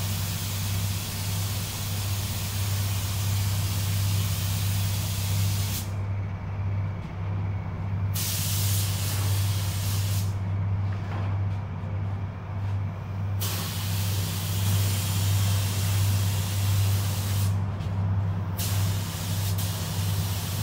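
Compressed-air spray gun hissing as it lays the second coat of 2K clearcoat, cutting out three times for a second or more between passes. A steady low hum runs underneath.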